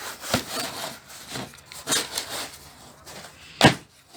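Tools being handled and moved about: scraping and rubbing with a few knocks, the sharpest near the end.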